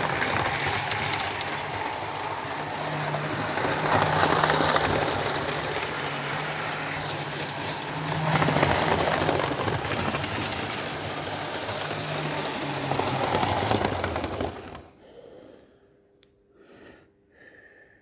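Model railway trains running on the layout: electric motor hum with wheels rattling over the track joints, swelling every few seconds, then cutting off suddenly about fifteen seconds in, leaving only faint clicks.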